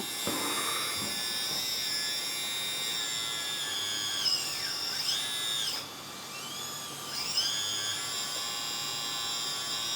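RC hydraulic excavator's electric pump motor whining steadily at a high pitch while the arm is worked, with no engine-sound module on. Its pitch sags and recovers about three times in the second half as the hydraulic load comes and goes.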